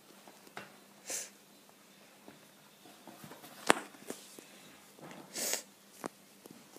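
Whippet puppy breathing out in two short, breathy puffs through the nose, about four seconds apart, with a few light clicks in between, the sharpest near the middle.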